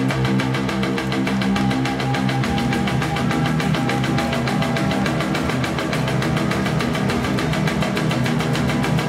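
Heavy metal music with electric guitars. Held chords change about two and a half seconds in to a busier low riff, over a fast, even pulse.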